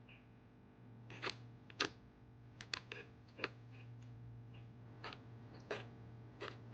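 Faint, irregular clicks and light taps, about eight of them, over a low steady hum.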